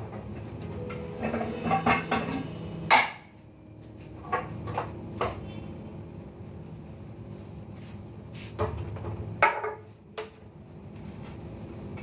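Kitchen clatter: a series of sharp knocks and clinks from cookware and cupboards being handled, the loudest about three seconds in, over a faint steady hum.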